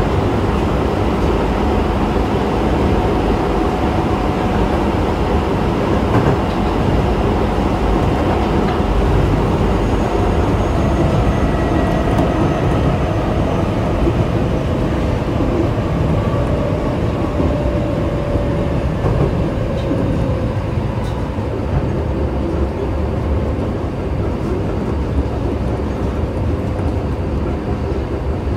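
Osaka Metro 24 series train with Hitachi IGBT inverter drive running between stations, heard from inside the car: a steady rumble of wheels on rail, with a faint motor tone that slowly falls in pitch and fades around the middle.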